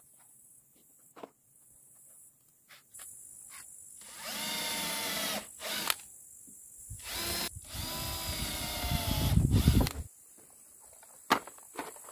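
Cordless drill-driver driving screws into wooden boards. The motor runs in short bursts a few times, the longest about two seconds, and the sound deepens at the end of that run as the screw pulls in.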